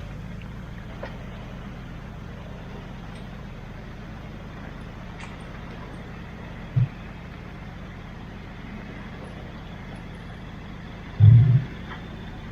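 Four-wheel-drive engine idling steadily with a low hum, with two short louder low thuds, about seven and eleven seconds in.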